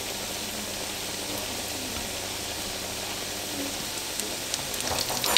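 Breaded, filled crepe rolls (Polish krokiety) shallow-frying in hot oil in a stainless steel pan: a steady sizzle, with a few light clicks near the end as metal tongs reach into the pan.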